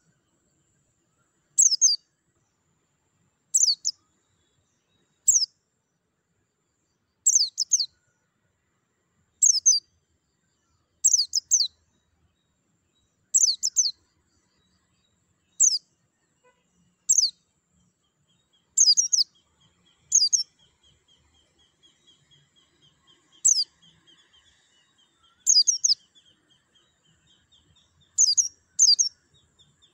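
White-eye (pleci) giving short bursts of high, quick chirps, one brief phrase about every two seconds, about fifteen in all. From about two-thirds of the way through, a faint rattling trill runs underneath.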